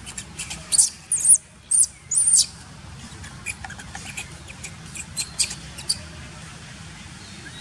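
Newborn macaque squealing: a run of short, very high-pitched squeaks, the loudest in the first two and a half seconds, then fainter ones until about six seconds in.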